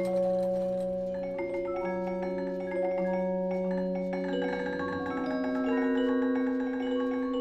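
Background music of softly struck, overlapping notes from a vibraphone-like mallet instrument, each note ringing on as new ones enter.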